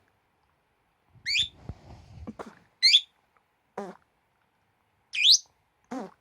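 A pet calling in short separate calls: quick high chirps that rise in pitch, three times, alternating with lower calls that fall in pitch, twice. Some faint rustling sounds around the first two chirps.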